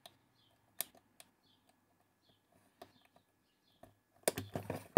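Sparse small plastic clicks as the battery plug is pressed home in the transmitter's battery bay, then a quick run of louder plastic knocks and clatter near the end as the battery pack is set into the compartment.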